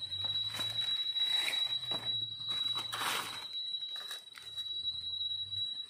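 Knife blade scraping and digging into dry soil and leaf litter in several short scrapes. A steady high-pitched whine runs throughout.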